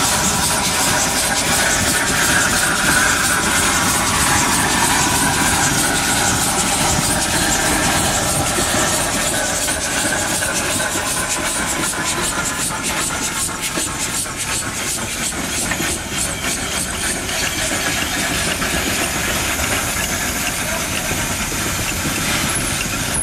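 Mount Washington Cog Railway steam locomotive No. 9 Waumbek under way at slow speed: a loud, steady hiss of steam venting at the cylinders with a fast, even beat from the locomotive's exhaust and running gear. The sound eases a little in the second half as the engine draws away.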